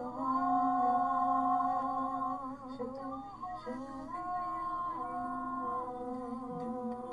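A female voice humming a slow, wordless melody in long held notes, over music.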